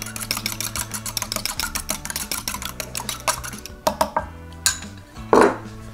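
A fork beating a raw egg in a small ceramic bowl: quick, even clinks of the fork against the bowl, about nine or ten a second. They stop a little after halfway, and a few single taps follow. Background music plays underneath.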